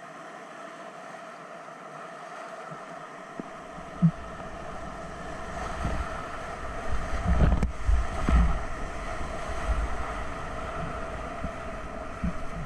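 River rapids rushing steadily, heard from a kayak paddling through them. From about four seconds in, waves break over the bow and splash against the microphone in low, irregular thumps that are loudest in the middle and ease off toward the end.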